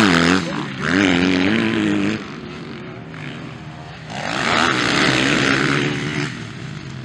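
Motocross bike engines racing, revving up and down in pitch, then a louder swell of engine noise about four seconds in that drops away near the end.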